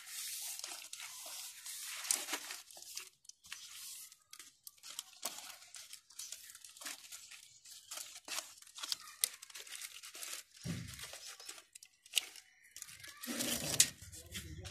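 Leaves rustling and crinkling in short scratchy strokes as a wooden stick presses grated coconut down into a leaf-lined aluminium pot, with a dull knock about eleven seconds in.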